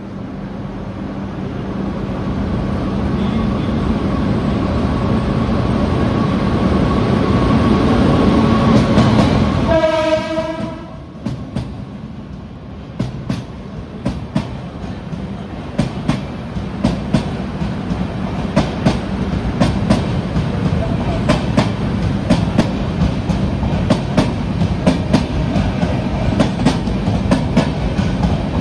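WAP-7 electric locomotive and its express train passing on the adjacent track inside a rock tunnel. The train's rumble grows louder for about ten seconds, a short horn blast sounds as the locomotive goes by, and then the coaches' wheels clack over the rail joints, the clacks coming quicker as the train accelerates.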